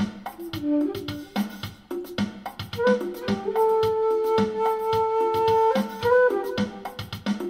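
Flute played through a Zoom 505-II effects pedal with harmonizer, over a steady drum beat. It plays short phrases, then holds one long note through the middle.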